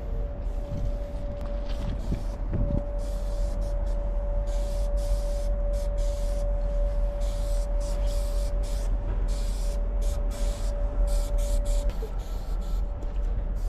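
Aerosol spray-paint can hissing in repeated bursts, short and longer, as letters are sprayed onto a wall. A steady low rumble and a thin constant hum run underneath.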